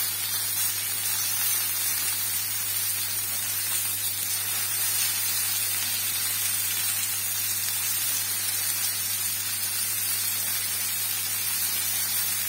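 Egg- and flour-coated chicken strips sizzling steadily in shallow oil in a non-stick frying pan, with a steady low hum underneath.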